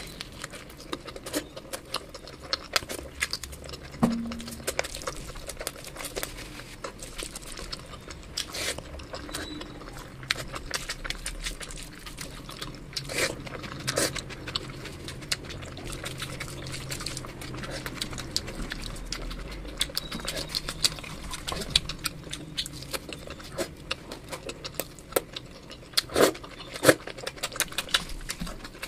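Close-miked eating sounds: wet chewing and lip-smacking on saucy chicken, a stream of irregular sticky clicks and smacks. Near the end, fingers pull apart a whole roasted chicken with a few louder wet tearing smacks.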